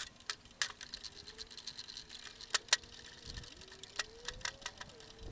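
Ratchet wrench clicking in quick runs as the welded-up nuts on a refrigerant compressor housing are backed off, with a few louder metal clacks among the clicks.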